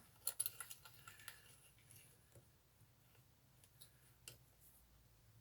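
Near silence with faint light clicks and taps of small parts being handled: a bike-seat quick-release clamp being fitted onto a strimmer shaft. Several clicks come close together in the first second and a half, then a few scattered ones.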